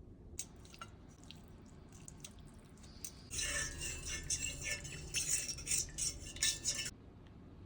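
Kitchen utensils clinking and scraping against cookware: a few light clicks, then from about three seconds in a stretch of busy scraping and clattering that stops abruptly.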